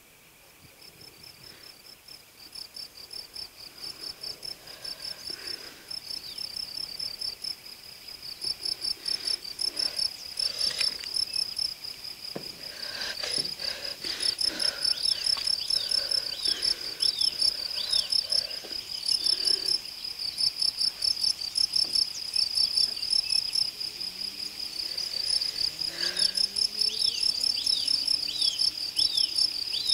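Crickets chirping in fast, even pulses, fading in from silence and growing louder over the first fifteen seconds. Short falling chirps from another night creature cut in now and then, a set of them near the middle and again near the end.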